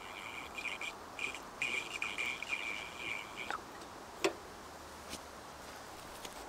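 Liquid fuel pouring in a thin stream into the filler neck of a hurricane lantern's tank, a steady trickle that stops about three and a half seconds in. A single light click follows.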